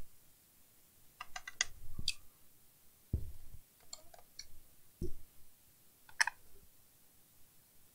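Scattered sharp clicks and taps of a laptop's plastic casing and a small tool being handled on a work mat, with two dull thumps about three and five seconds in as the laptop is shifted.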